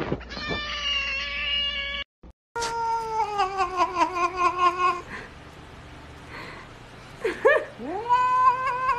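Grey tabby cat yowling in long drawn-out meows that waver and slide down in pitch. After a pause, a couple of short rising cries lead into another long wavering yowl near the end.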